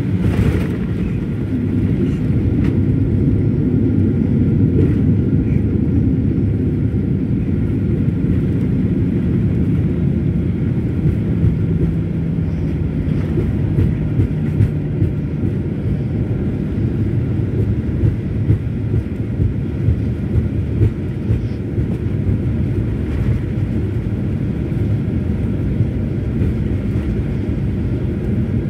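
Cabin noise inside a Ryanair Boeing 737 rolling along the runway after landing: a steady low rumble of engines and wheels with a faint hum, and a string of small bumps in the middle.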